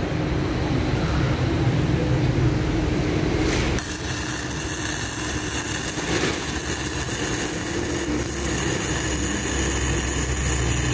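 Protech MIG-250i gasless flux-core MIG welder: about four seconds in, the arc strikes and a steady crackling hiss of welding at around 120 A on 2 mm steel carries on to the end, over a lower hum before the arc starts.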